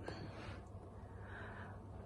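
Faint room tone with a low steady hum, in a short pause between spoken sentences.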